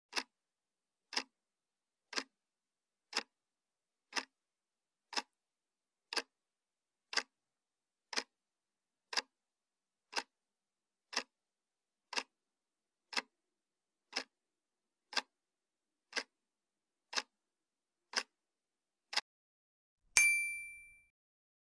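Quiz countdown-timer sound effect: a clock ticking once a second, twenty ticks in all, then a bright ding near the end that marks time up and the answer being revealed.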